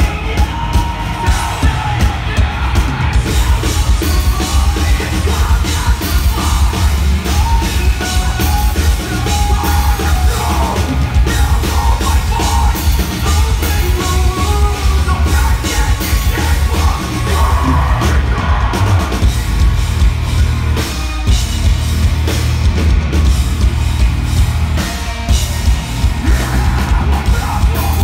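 Live metalcore band playing loud heavy music, with yelled, screamed vocals and some singing over pounding drums and bass.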